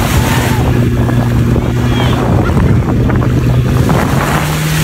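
Amphibious wheeled jetski's engine running with a steady low hum that steps up in pitch about four seconds in as it speeds up, with wind buffeting the microphone and water sloshing.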